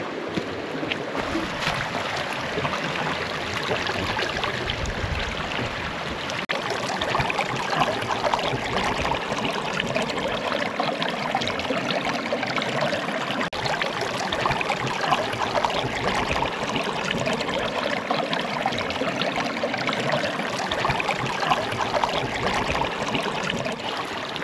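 Shallow creek water running and trickling over rocks, heard close up, with water flowing around a hand held in the current.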